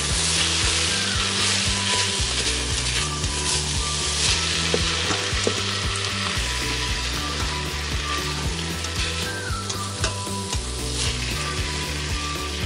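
Beans, onions and spices sizzling in the hot stainless inner pot of an Instant Pot on its sauté setting while a spatula stirs them, with small scrapes and clicks of the spatula against the pot.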